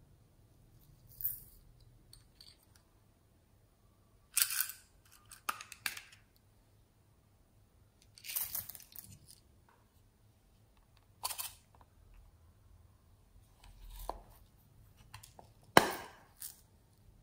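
Small plastic pots of glitter and sequins being handled: a series of sharp plastic clicks, rattles and rustles as lids are opened and the contents are tipped and shaken out, the loudest near the end.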